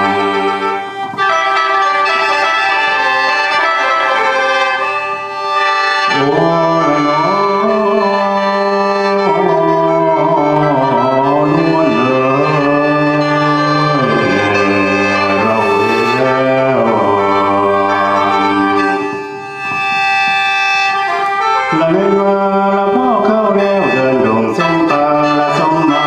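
Khaen, the Lao bamboo free-reed mouth organ, playing a steady chordal drone with a moving melody. Over it a man sings lam in a wavering, bending line that drops out briefly twice.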